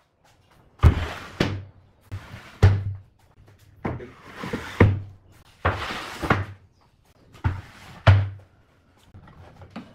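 Workshop knocking and scraping: about ten sharp, heavy knocks, mostly in pairs, each trailing a short rasping hiss.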